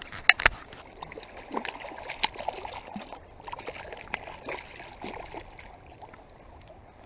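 Hooked brook trout thrashing at the surface beside a float tube, a run of small irregular splashes and drips, with two sharp slaps of water close together near the start.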